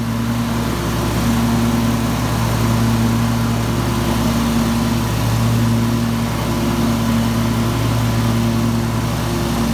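Riding mower's Briggs & Stratton Intek 20 hp V-twin engine running steadily at an even speed while the mower drives, its carburetor freshly cleaned and reinstalled.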